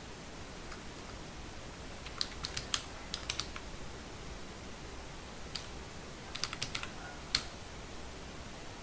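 Typing on a computer keyboard: two short runs of key clicks a few seconds apart, with a single keystroke between them, over a faint steady low hum.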